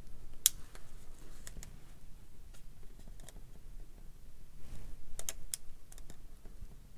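Sharp, scattered plastic clicks and taps from an Amazon Kindle Keyboard being handled, a thumb working the slide power switch on its bottom edge. The loudest click comes about half a second in, with a cluster of clicks around five seconds in.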